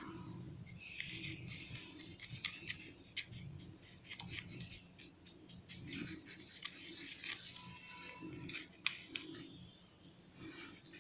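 Faint scratchy rubbing of colour being worked onto drawing paper by hand, in quick irregular strokes with small ticks.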